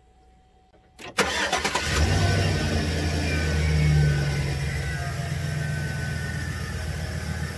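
Chevrolet 4.8 L Vortec V8 starting about a second in: a brief crank, then it catches and runs at a fast idle that builds for a few seconds and then eases down. It is running on fresh high-mileage 5W-30, and the owner hears the noisy lifter as quieted down.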